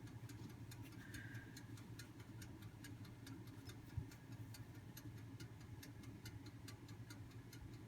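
Faint, even ticking, several ticks a second, over a low steady hum, with one soft knock about four seconds in.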